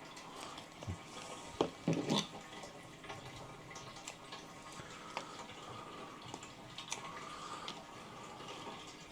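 Water being poured into a plant pot, a faint steady trickle. A few sharp knocks come about two seconds in.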